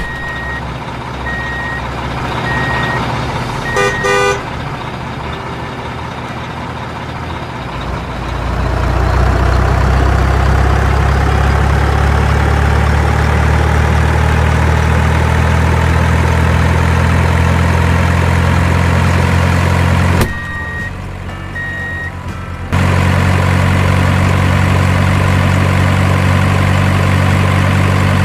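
Huina radio-controlled excavator and dump truck: a few short high beeps in the first seconds, then from about eight seconds in a loud, steady engine-style drone with a slowly rising whine. Near twenty seconds the drone drops out briefly for a quieter stretch with a couple of beeps, then comes back.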